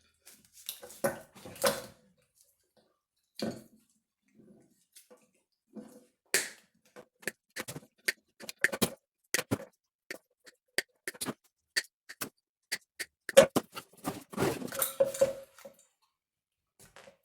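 Irregular sharp clicks, snaps and rustling from handling a car engine wiring harness: plastic connectors and bundled wires being pulled apart and sorted, with a busier cluster of snaps near the end.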